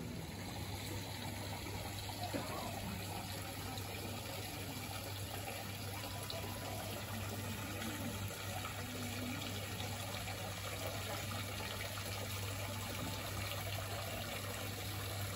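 Garden water feature trickling and splashing steadily into a pond, with a steady low hum underneath.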